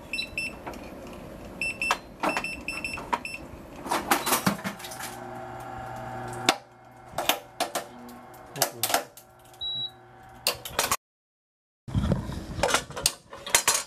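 PPD-2G hard drive destroyer with autoloader cycling through drives: short electronic beeps and a string of sharp mechanical clicks and clacks, with the machine's motor running steadily for about two seconds in the middle.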